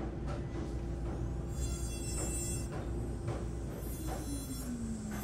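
Background music: a steady held tone with shimmering high notes that come in twice, and a lower tone sliding downward near the end.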